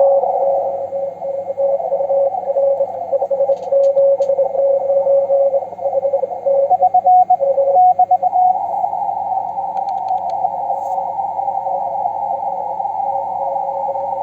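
Shortwave receiver audio through a narrow CW filter: band hiss with a weak Morse code signal keyed on and off for about the first eight seconds. A second faint Morse tone at a higher pitch comes in briefly near the end of that, then only band noise remains.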